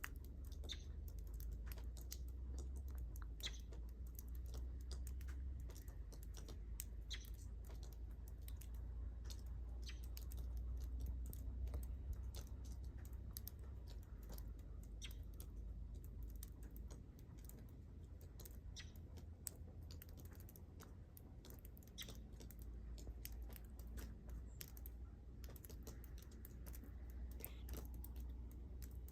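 Faint, irregular small clicks and ticks, several a second, over a low steady rumble.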